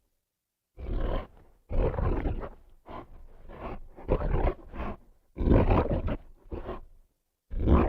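Creature sound effect built from processed animal recordings: a run of about six separate roars and growls, each up to a second long, with short pauses between, starting after a brief silence.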